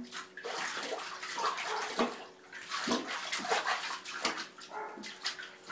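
A baby splashing water in a plastic baby bath tub, slapping the water with her hands in a run of irregular splashes.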